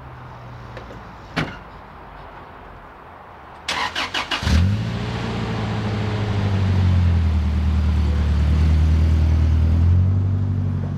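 A car door shuts about a second in; then the mini truck's engine cranks with a few quick turns and fires about four seconds in, running steadily and pulling away near the end.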